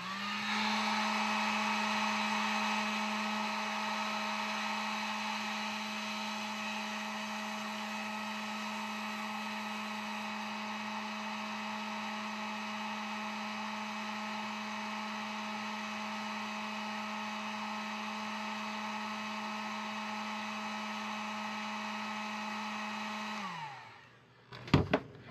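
Heat gun on its low setting running steadily, a fan-motor whine over an airy hiss. Near the end it is switched off and the whine falls in pitch as the fan spins down.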